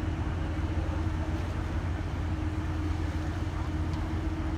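Ship's engines running steadily: a low drone with a held hum above it.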